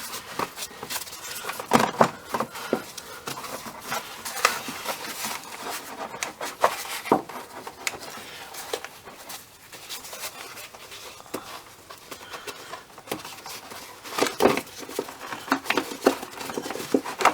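Clips on a car's air filter housing being popped open and the housing lid and air filter handled: scattered clicks, knocks and rustling.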